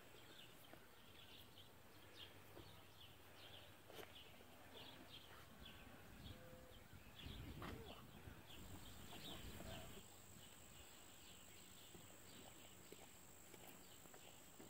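Near silence: faint outdoor quiet with small birds chirping off and on, and a faint low shuffling in the middle.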